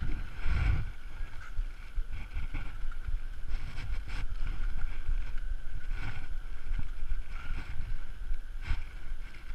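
Wind buffeting an action camera's microphone: a low rumble that swells and drops in gusts, with a faint steady high tone underneath.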